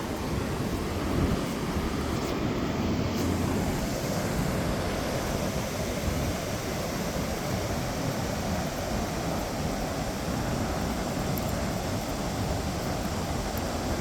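Ocean surf washing steadily, mixed with wind buffeting the microphone.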